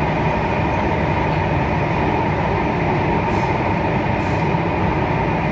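Singapore MRT Circle Line train running, heard inside the passenger car: a steady rumble with a constant hum near 1 kHz, and a couple of faint short hisses about three and four seconds in.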